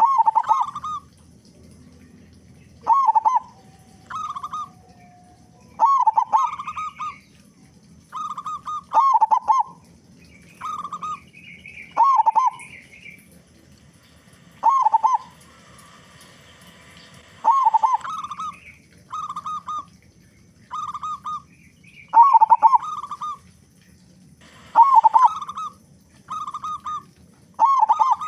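Zebra dove (perkutut) singing, repeating short bubbling coo phrases every one to three seconds, sometimes in quick pairs, with a higher bird twittering now and then.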